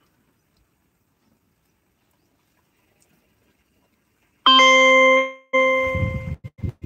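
Near silence for about four seconds, then a loud bell-like ringing tone starts suddenly and sounds for about a second. It comes again shortly after, with low rumbling thumps under it, and then breaks off in short bits.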